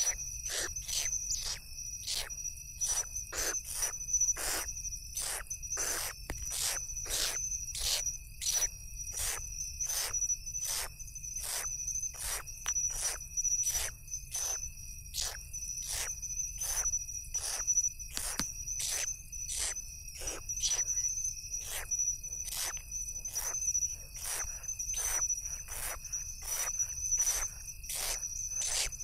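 Owl chicks giving rasping begging hisses, about two a second, as they are fed, over a steady high-pitched drone of insects.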